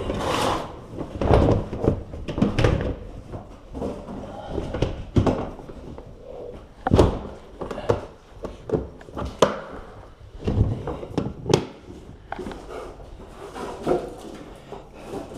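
Irregular thuds and knocks as boxes and household belongings are handled and set down, a few sharper knocks coming close together about seven to twelve seconds in.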